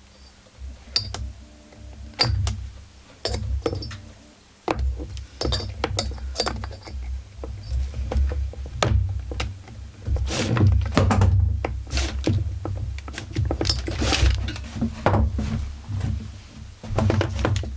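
Irregular clicks, knocks and metal clinks of hand tools working on a chainsaw during disassembly, against a screw that will not turn. The knocks come thicker in the second half.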